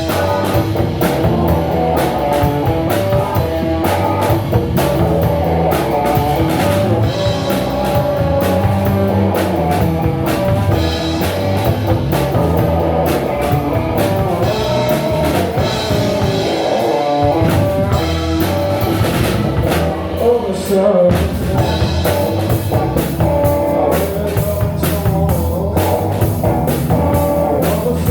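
Live blues band playing a song: guitar over a drum kit, steady and loud throughout.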